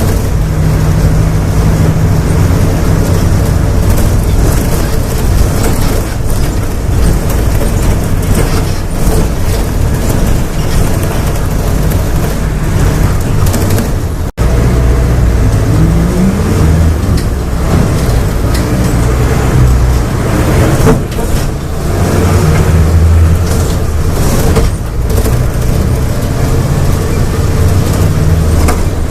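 Volksbus 17.230 OD bus diesel engine running hard at high revs under heavy throttle, its pitch rising and falling as it accelerates through the gears. The sound cuts out for an instant about halfway through.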